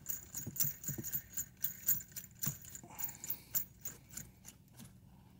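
Small metal parts on a seat-belt anchor bolt clicking and rattling lightly as a nut is spun on by hand, the eyelet, collar and washer jingling on the bolt; the irregular ticking stops near the end.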